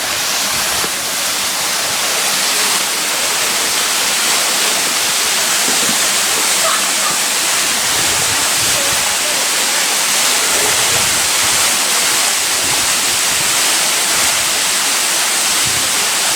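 Waterfall pouring close at hand: a loud, steady rush of falling water that never lets up.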